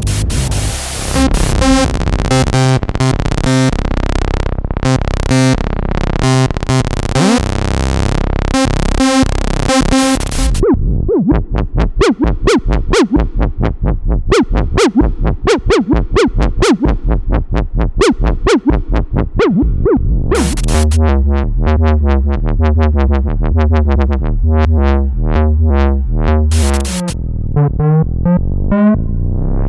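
Moog Minitaur analog bass synthesizer playing demo lines. It opens with thick low notes and filter sweeps, moves about a third of the way in to a fast run of short plucky notes, and from about two thirds of the way in plays a pulsing deep bass line.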